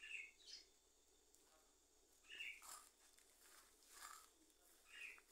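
Faint, sticky squelches of wet bread dough being kneaded and squeezed by hand, about five short squishes a second or so apart.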